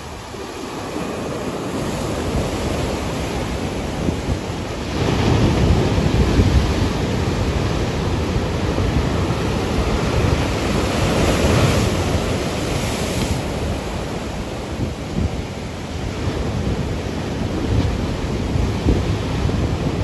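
Rough surf: waves breaking and foaming water washing over a rocky shore in a continuous rush. The surge swells about five seconds in and again around eleven to thirteen seconds.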